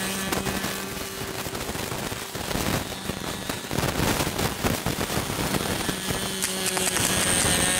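Electric motor of a small pizza-box RC plane whining steadily, fading about half a second in and coming back about five seconds in, over a rapid, irregular crackle of pops.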